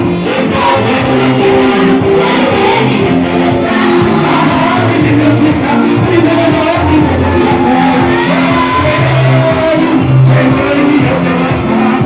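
Loud gospel worship music: a church band with bass and singing voices, playing steadily throughout.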